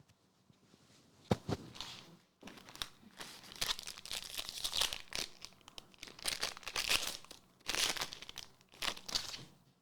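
Trading-card packaging being torn open and crinkled: two sharp clicks about a second in, then irregular crinkling and tearing of plastic-foil wrappers that runs on in uneven spurts and stops near the end.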